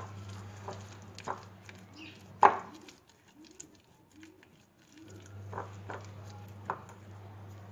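Spoon mixing coleslaw (shredded carrot and lettuce in mayonnaise) in a bowl, with a handful of scattered knocks against the bowl over a low steady hum.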